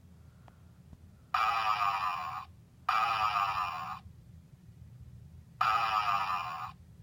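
Super Poo Chi robotic toy dog playing its electronic snoring sound, the sound it makes in sleep mode. Three snores, each about a second long and slightly falling in pitch.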